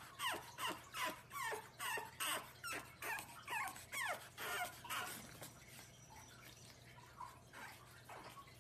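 Pug puppy whimpering in a rapid run of short, high yelps that drop in pitch, about three a second, stopping after about five seconds.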